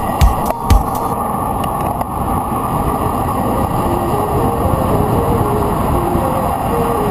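Steady rushing wind noise on the camera of a road bike descending fast, with background music whose beat stops about a second in and a soft stepping melody in the second half.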